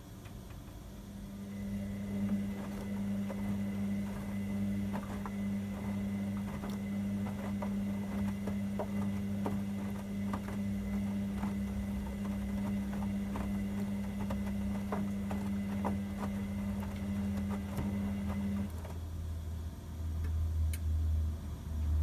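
Hoover Vision Dynamic front-loading washing machine (DYNS 7144 DIX) tumbling its main wash: the drum motor starts with a steady hum about two seconds in, while the wet laundry and water slosh with small scattered knocks. The motor stops near the end, and a lower hum follows.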